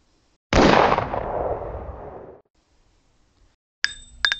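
A single shot from an RTI Prophet P3 PCP air rifle: a sudden loud report about half a second in that dies away over about two seconds. Near the end a chiming musical sting with ringing tones begins.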